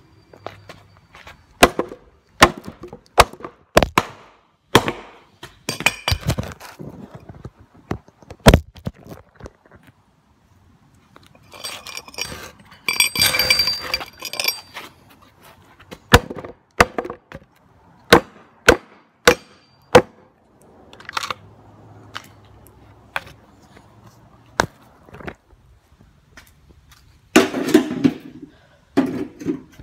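Hatchet chopping into a wooden 4x4 beam: a series of sharp single blows, mostly about a second apart, with a longer stretch of cracking and splintering about halfway through. Near the end there is close, rough handling noise.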